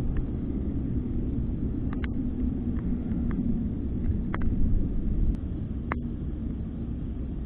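Wind rumbling unevenly on an outdoor camera microphone, with a few small clicks as fishing tackle is handled, about two, four and six seconds in.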